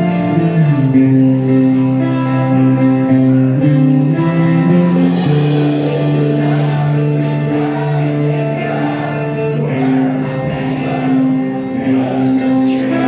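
Live black metal band playing: distorted electric guitars hold long sustained chords over a drum kit, with a cymbal crash about five seconds in and a man's singing voice in the middle.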